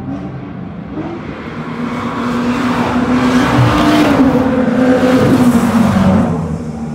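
Several cars at speed on a circuit straight, engines pulling hard as they pass close by one after another. The sound grows louder to a peak a few seconds in, then fades as they move away.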